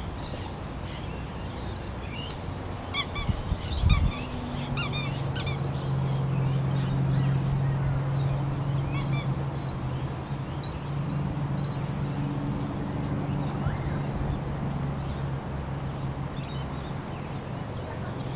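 Outdoor backyard ambience: birds chirping repeatedly in the first several seconds and again briefly later, over a steady low hum that sets in about four seconds in, with a single low thump at that point.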